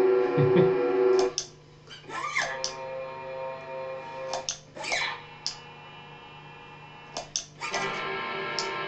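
Pick scrapes along electric guitar strings, each caught and held as a sustained drone by an Electro-Harmonix Freeze pedal, making crazy robot-y noises. The held sound is replaced several times as new scrapes are frozen, and it drops quieter a little over a second in before building again near the end.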